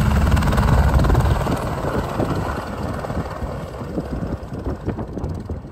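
Helicopter rotor and engine noise, loud at first and then fading over a few seconds as the helicopter moves away.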